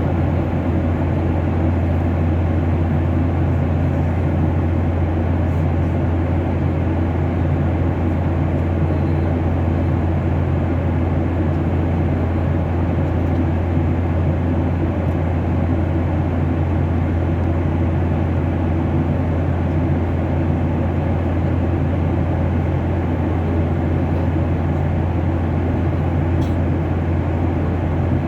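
Aircraft in flight: a loud, steady drone of engines and airflow with a strong low hum, unchanging throughout.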